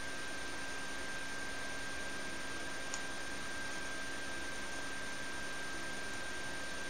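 Room tone: a steady hiss with a thin, steady high whine running under it, and a faint tick about three seconds in.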